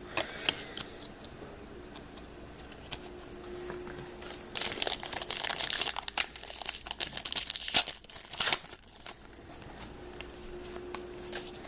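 Crinkling and tearing of a trading card pack's wrapper with light clicks from the cards being handled. The rustling comes in two bursts near the middle.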